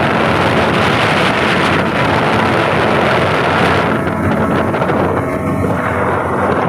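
40 hp outboard motor running steadily at speed on a river boat, with a rushing hiss over the engine's low hum; the hiss thins out about four seconds in.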